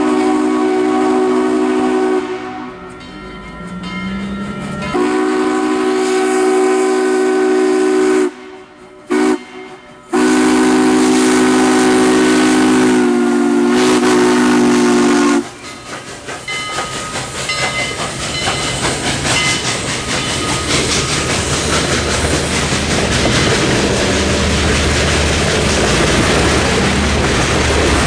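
Steam locomotive whistle sounding several notes at once in the grade-crossing signal: two long blasts, a short one and a final long one ending about halfway through. Then the locomotive and its passenger cars roll over the crossing with a rumble and clickety-clack of wheels on rail joints.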